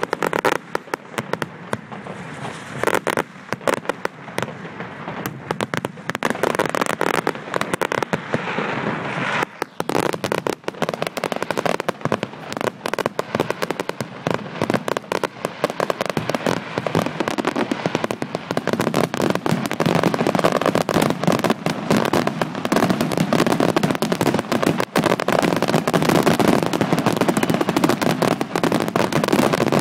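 Fireworks display: a dense, continuous run of bangs and crackling, growing louder and denser about two thirds of the way through.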